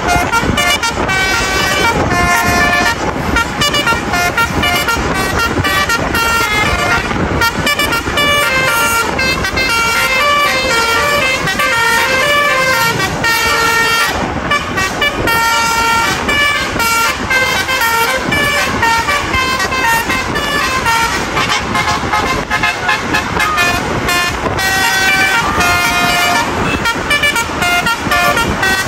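Bus 'basuri' musical air horns playing a continuous melody, several horn tones stepping up and down in quick succession, over the running of bus engines and road noise.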